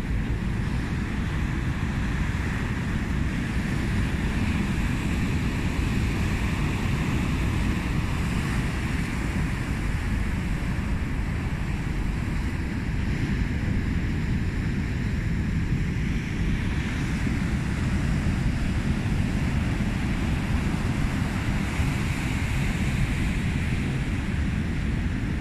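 Rough sea surf breaking and washing over a rocky shore, a steady heavy rush, with wind buffeting the microphone.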